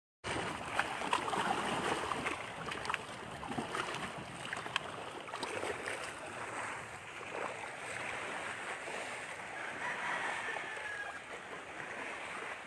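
Steady rushing outdoor noise, with scattered sharp clicks and knocks in the first half and a faint, slightly falling tone about ten seconds in.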